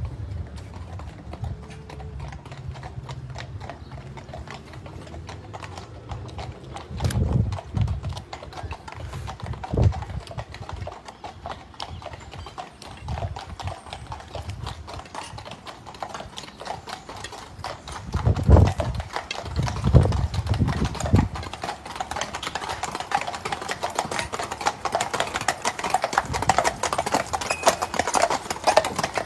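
Horse hooves clip-clopping steadily, a dense run of sharp hoof strikes, with a few heavy low thumps about seven and ten seconds in and a cluster of them around eighteen to twenty-one seconds in.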